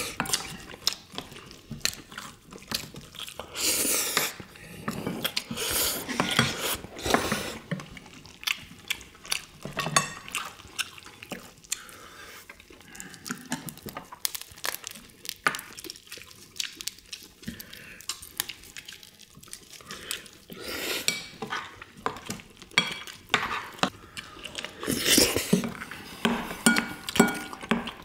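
Spoons and chopsticks clinking and scraping against ceramic bowls and plates, with chewing, as several people eat soy-sauce marinated crab with rice: many short clicks scattered throughout.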